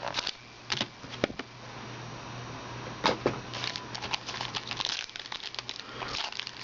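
Plastic wrapping on a box of trading cards crinkling and rustling as it is handled and torn open, with a few sharp taps of cardboard, the loudest about three seconds in, over a faint steady hum.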